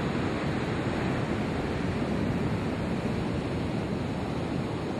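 Ocean surf breaking and washing on a beach in a steady rush, with wind noise on the microphone.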